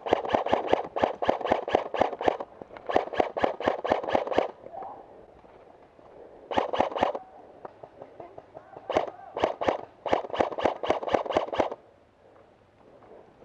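Airsoft guns firing in rapid bursts of evenly spaced shots, roughly seven a second, as cover fire. There are four bursts with short gaps between them, and the firing stops about two seconds before the end.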